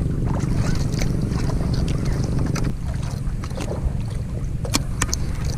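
Outrigger boat's engine running with a steady low hum that drops in level a little under three seconds in, with scattered light splashes and clicks of choppy water around the hull.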